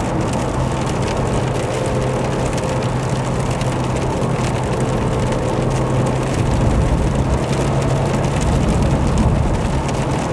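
Car driving on a wet road in the rain: a steady engine hum over the hiss of tyres on wet tarmac and rain on the windscreen. The engine hum fades away near the end.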